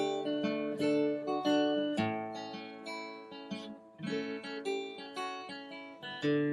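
Background music: acoustic guitar picking and strumming chords, with a chord change about two seconds in.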